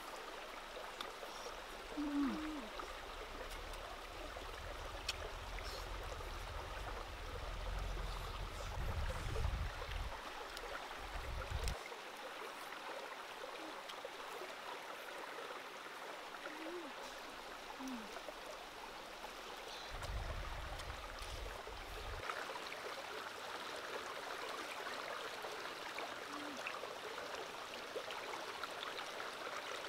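A stream running steadily over rocks, with two spells of low rumble, one through the first third and a shorter one about two-thirds of the way through.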